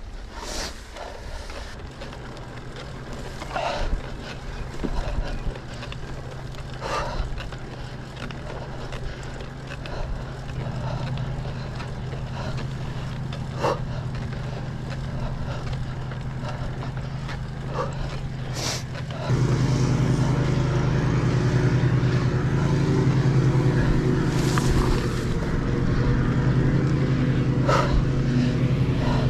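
Mountain bike being ridden: a steady hum that grows louder about ten seconds in and steps up sharply a little past halfway, with scattered clicks and knocks.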